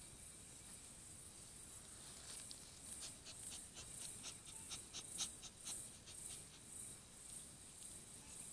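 Giant anteater sniffing and snuffling in the leaf litter close to the microphone, with a quick run of short sharp sniffs in the middle. Behind it a high insect chirr pulses about twice a second.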